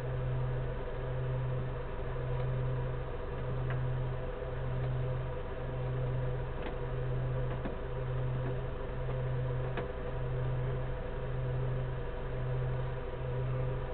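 A steady mechanical hum with a low drone that swells and fades about once a second, and a few faint clicks.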